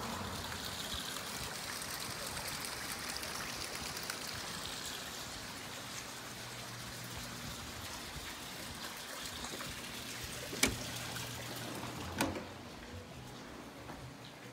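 Water trickling steadily in a rock-lined garden pond's water feature. Near the end come two sharp clicks about a second and a half apart, after which the water sound drops away.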